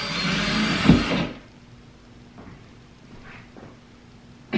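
Cordless drill running as it bores into the wall, stopping about a second in after a sharp thud. Faint handling sounds follow, and a short click near the end.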